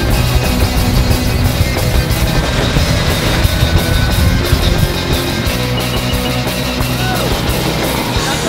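Loud rock music with distorted electric guitar and drums.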